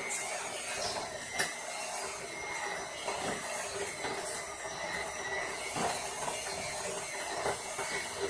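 A spoon knocking and scraping in a mixing bowl as Cool Whip is scooped into banana pudding: a handful of sharp clicks, over a steady background hum with high whining tones.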